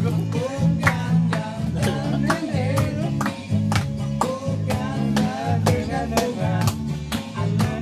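Background song with a singing voice over guitar, bass and a steady beat.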